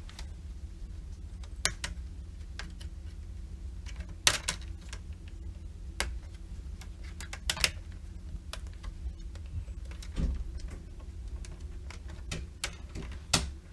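Plastic screen bezel trim of an MSI GE70 laptop being pried off with a flathead screwdriver: sharp clicks and snaps every second or two as its clips let go, over a steady low hum.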